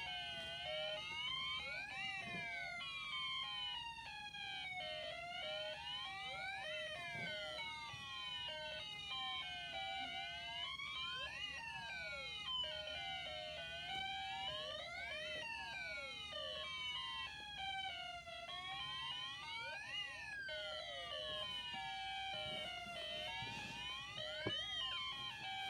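Electronic siren from a Snap Circuits speaker: a tone that sweeps down and back up about every four seconds, layered with a stepped, beeping tune.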